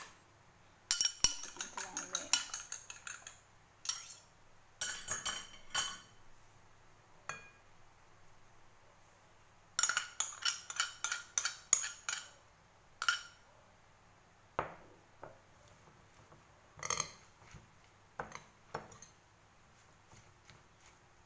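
Metal spoon clinking and scraping against glass bowls while egg is scraped into and stirred through shredded cabbage. There are two quick runs of sharp clinks, one near the start and one about halfway, with single clinks in between.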